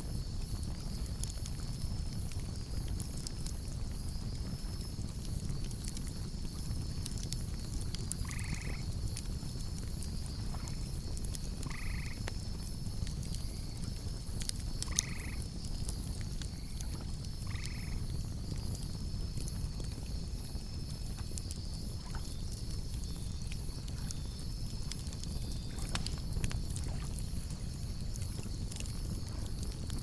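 Campfire burning, with scattered crackles and pops over a low steady rumble; one sharper pop comes about halfway. Insects chirp in a fast, even pulse throughout. Four short calls, about three seconds apart, stand out in the middle.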